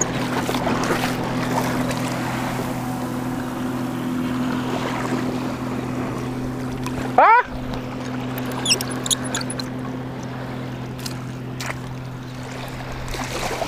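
Boat motor running steadily, a low even drone, with a brief sharp rising squeal and a short cut-out about seven seconds in.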